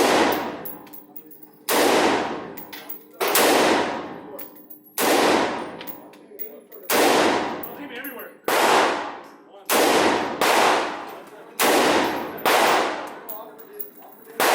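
A series of about ten gunshots, roughly one every second and a half, some followed closely by a second shot. Each crack rings out and fades over about a second.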